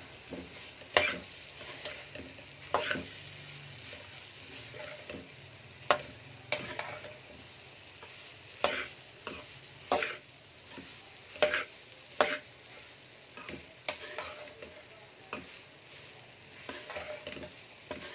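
Metal spoon stirring boiled chickpeas in a steel pan of frying masala: irregular sharp clinks and scrapes of the spoon against the pan over a steady sizzle, as the chickpeas are fried (bhunai) in the spices.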